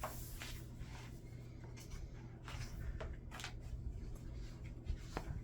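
Pages of a hardcover photobook being turned and handled: several brief papery swishes and rustles over a steady low room hum.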